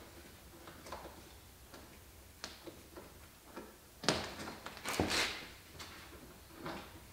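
Hands-on work on a stripped car body: scattered light clicks and knocks, with two louder scraping, rasping sounds about four and five seconds in.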